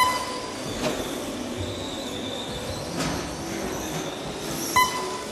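1/12-scale electric on-road pan cars running laps on a carpet track, their motors and drivetrains making a steady high whine. Two short, loud electronic beeps from the lap-timing system sound as cars cross the line, one at the start and one near the end.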